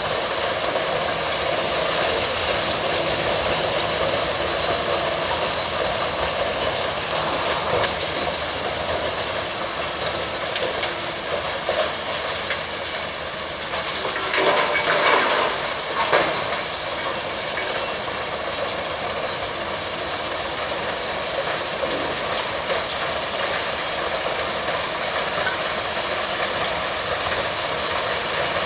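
Mobile rubble crusher running with a steady mechanical din while it processes demolition rubble. About halfway through it grows louder for a couple of seconds as an excavator bucket tips broken concrete into its hopper.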